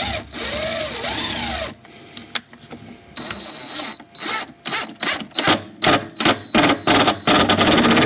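Cordless DeWalt impact driver driving pocket screws into a wooden cabinet panel. The motor whirs with its speed rising and falling. Then, from about halfway, comes a run of short, quick bursts, loudest near the end, as the screw is driven home.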